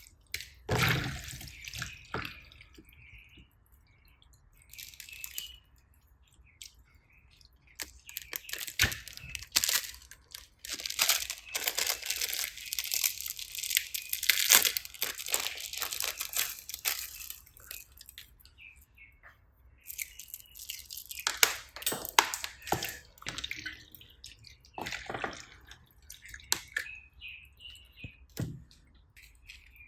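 Slime being squished and mixed, making irregular clicking and crackling. The clicks come thick in two long stretches, with sparser clicks and pauses between them.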